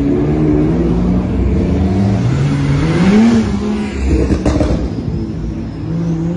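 Supercar engines running as a line of cars rolls slowly past, with one engine revving briefly about three seconds in, its pitch rising and then dropping back.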